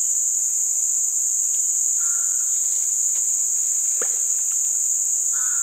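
Steady, high-pitched drone of an insect chorus, with a short faint call about two seconds in and another near the end.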